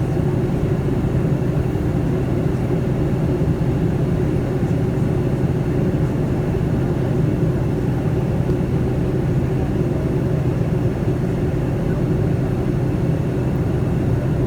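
Steady in-flight cabin noise of a Boeing 757-200 airliner: engine and airflow drone heard from inside the cabin, a low, even rumble.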